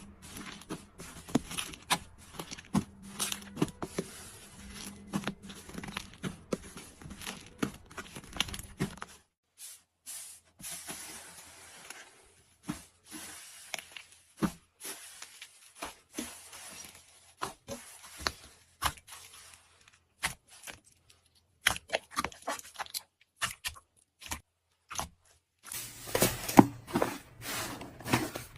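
Slime being squeezed and poked by hand, making many quick, sharp clicks, pops and crackles. It grows louder and denser near the end.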